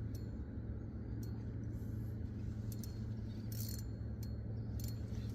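Fishing reel clicking now and then, a few irregular ticks, while a hooked fish is fought, over a steady low hum.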